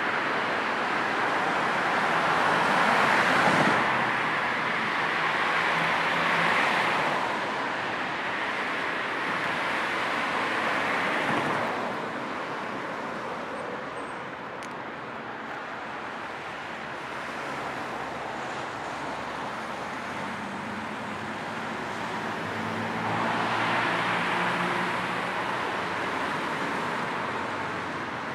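Road traffic: cars passing one after another, their tyre and engine noise swelling and fading, loudest a few seconds in and again near the end. A low engine hum runs through the second half.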